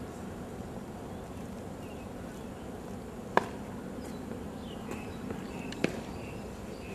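Open-air parade-ground ambience: a steady wash of background noise with scattered faint high chirps. Two sharp knocks about two and a half seconds apart, the second a little quieter.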